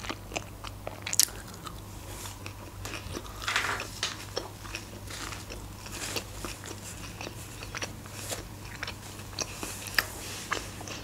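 Close-miked chewing of a sushi roll: irregular wet mouth clicks and soft crunches.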